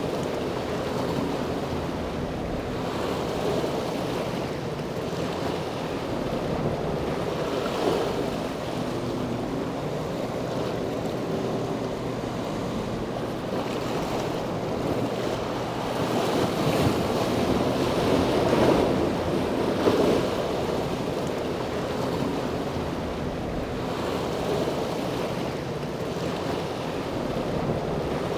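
Steady rush of wind and water, with wind buffeting the microphone and growing louder for a few seconds past the middle, over a faint low drone of boat engines.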